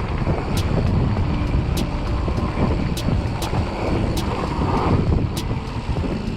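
Mountain bike riding down a dirt trail, heard from a handlebar-mounted camera: a steady rumble of tyres, frame and wind on the microphone, with a light tick about every 0.6 seconds.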